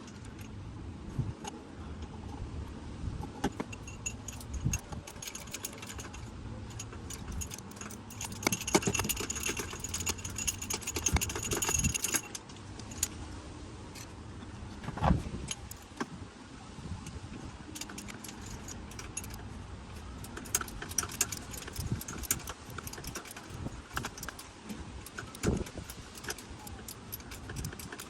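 Metallic clinking and rattling, like hand tools and small metal parts being handled, with many scattered sharp clicks. The clinking is busiest for a few seconds near the middle.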